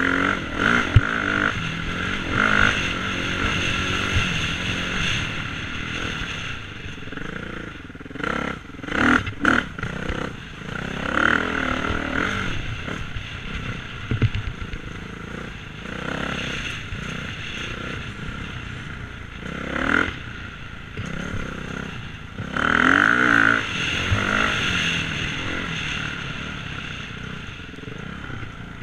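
Dirt bike engine running under way on a trail, its pitch rising and falling with the throttle. There are several louder bursts of revving, a cluster about a third of the way in and more near two-thirds through.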